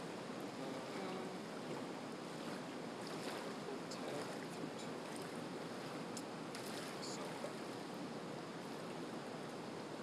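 Steady rushing outdoor background noise, even throughout, with a few faint high ticks in the middle.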